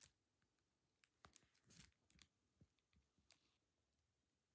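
Near silence: room tone with a few faint, scattered soft clicks.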